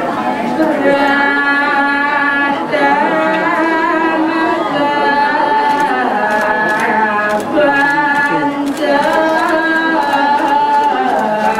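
Singing in long, held notes that waver slowly and step from pitch to pitch every second or two, in the style of a chant.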